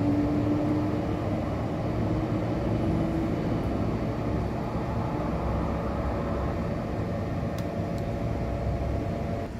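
Steady low mechanical hum and rumble, with a faint steady tone that fades out about three seconds in.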